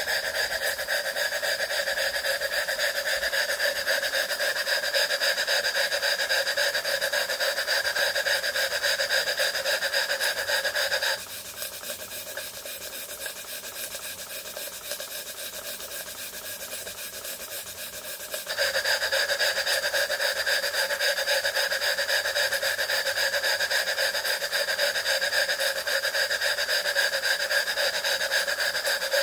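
A Jensen 20G model steam engine running steadily on steam from a copper boiler: a fast, breathy exhaust chuff with steam hiss. About eleven seconds in, the sound drops and thins for some seven seconds, then comes back at full strength.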